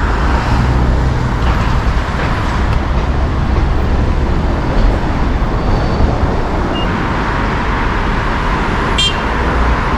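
Busy city road traffic: cars driving past close by, a steady rumble of engines and tyres on the road. There is one short sharp click about nine seconds in.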